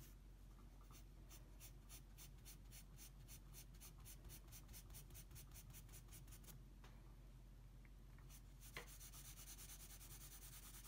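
Pencil scratching on drawing paper in quick, even hatching strokes, about five a second, laying in shading. Near the end it turns to a denser, continuous scribble. Faint.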